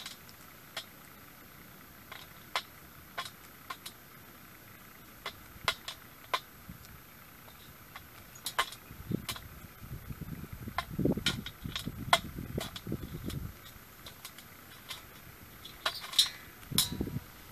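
Crows pecking at dry food in a metal pan: sharp, irregular taps and clicks of beaks on the pan and the food, several a few seconds apart, coming thicker near the end. From about nine to thirteen seconds in, a low rumbling noise runs under the taps.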